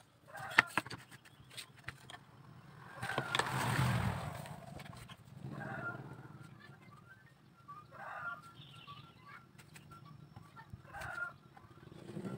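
Chickens clucking every few seconds in short calls. A louder rushing noise swells up and fades a few seconds in, and a few sharp clicks and taps come near the start.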